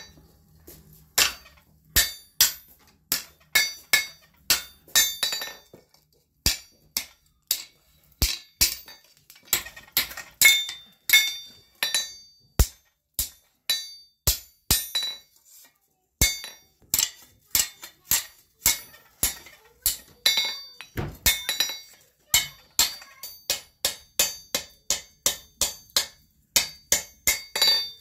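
Blacksmith's hand hammer striking red-hot steel strap on an anvil, forging a strap hinge. Each blow rings, in runs of about two to three blows a second with short pauses between runs.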